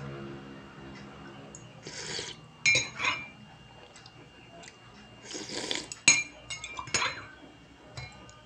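Metal teaspoon clinking against a ceramic mug several times, each clink sharp with a short ring, the loudest about six seconds in. Two short liquid sounds from the drink come in between, one about two seconds in and one about five seconds in.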